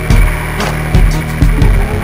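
Powered parachute's engine running steadily at high power during its ground roll on grass, with irregular low thumps every half second or so.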